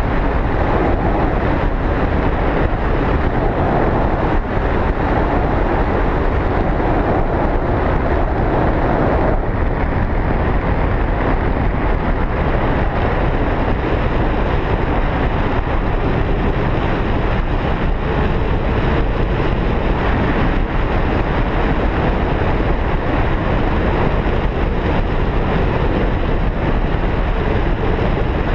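Steady wind noise rushing and buffeting over a handheld camera's microphone from the airflow of a tandem paraglider in flight.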